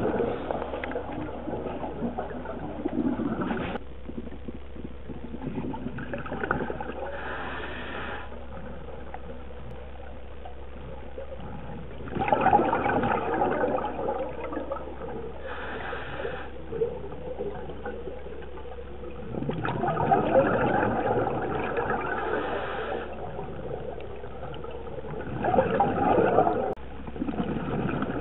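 Scuba regulator breathing heard underwater: a gurgling rush of exhaled bubbles every several seconds, with a short hiss of inhalation between them. A steady low hum runs underneath.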